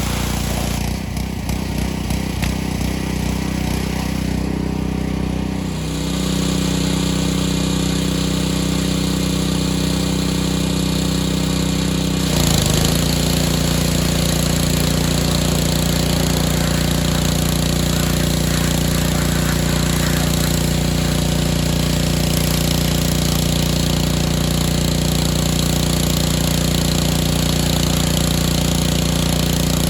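Gas-engine pressure washer running steadily, with a spray hiss. Its engine note changes about six seconds in, and again about twelve seconds in, when the hiss grows stronger.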